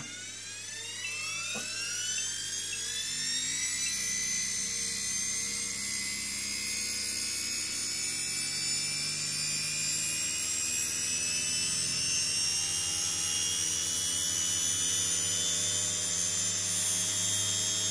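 Small electric motors on a test bench spinning up, one driving a DC series-wound motor as a generator. A high whine rises in pitch over the first few seconds, then holds steady at about 2,000 RPM.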